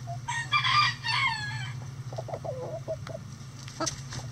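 A rooster crows once, about a second and a half long, starting just after the beginning. Hens cluck softly afterwards, over a steady low hum.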